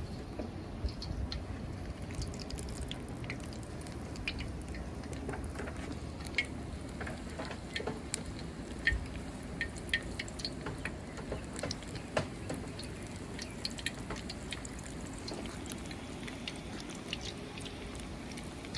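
Hush puppy batter frying in hot oil: a steady sizzle with many scattered sharp pops and crackles.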